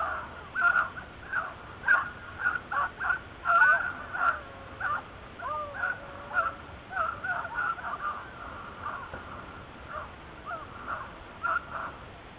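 A pack of beagles baying in short, irregular, overlapping cries, the hounds giving tongue as they trail a rabbit. The cries thin out and grow fainter in the last few seconds.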